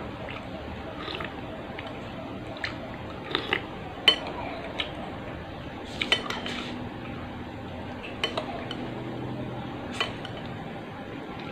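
Spoon and utensils clinking against a bowl of bakso soup: about a dozen light, scattered clinks and taps, with a small cluster about six seconds in, over a steady low hiss.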